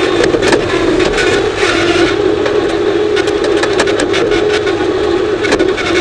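Skid steer engine running steadily as the machine drives over rough dirt, with frequent rattles and clanks from the machine.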